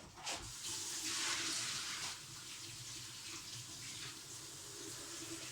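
Hot water running and splashing, strongest for the first couple of seconds and then a thinner, steady flow.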